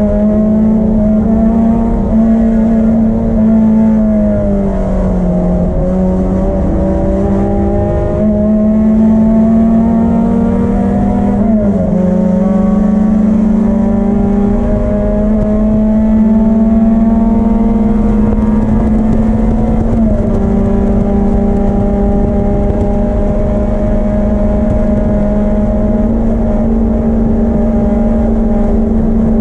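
Vintage BMW racing car's M10 four-cylinder engine pulling hard at high revs, its pitch climbing steadily. It eases off and recovers around five seconds in, drops sharply with an upshift near twelve seconds and climbs again, and dips briefly around twenty seconds.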